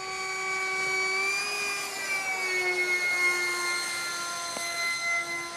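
Radio-controlled Eurofighter model jet flying past, its motor giving a steady whine that rises briefly about a second and a half in, then drops and settles at a lower pitch.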